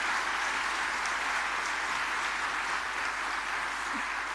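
Audience applauding: dense, steady clapping from a crowd.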